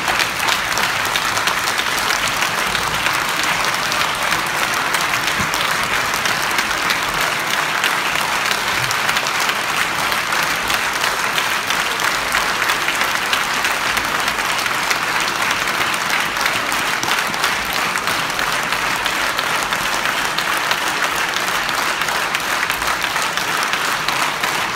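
Audience applauding steadily: dense, even clapping that keeps up without a break.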